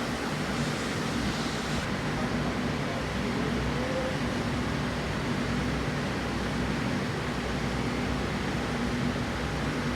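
Steady mechanical background hum under an even hiss, with no distinct tool or work sounds.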